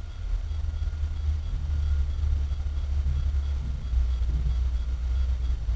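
Heavy machinery working on nearby farmland, a steady low rumble that does not let up.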